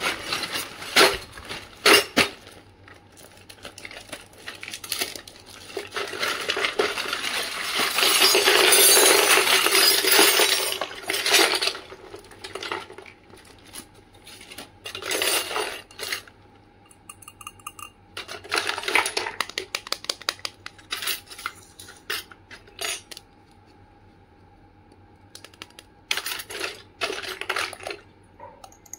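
Plastic mailer bag crinkling and rustling, then a heap of miniature plastic and stainless-steel toy kitchenware clinking and clattering as pieces are tipped out and picked up one by one. A long dense crackle comes near the middle, with separate light clicks and clinks after it.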